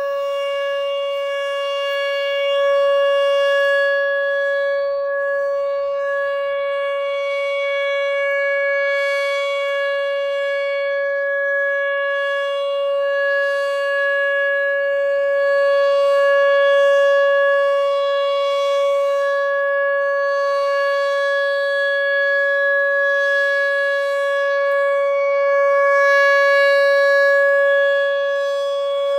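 Whelen 2806 electronic outdoor warning siren sounding its steady 560 Hz alert tone, a single held pitch whose loudness swells and fades slowly; this is the steady alert signal of a scheduled siren test.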